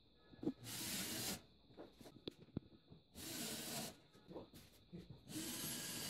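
Cordless drill-driver run in three short bursts, each under a second, driving screws through plastic ceiling panels.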